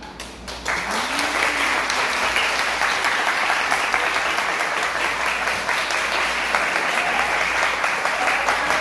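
Audience applauding: a few separate claps, then from about a second in a full, steady round of applause.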